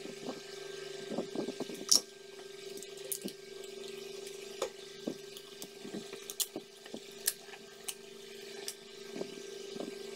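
Scattered light clicks and taps of a soldering iron and tools on a UPS inverter's circuit board as replacement FETs are soldered in, over a steady hum. The sharpest click comes about two seconds in.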